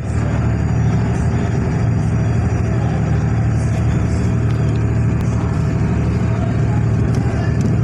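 A boat's engine drones steadily with a low hum, under a constant rushing noise of wind and water.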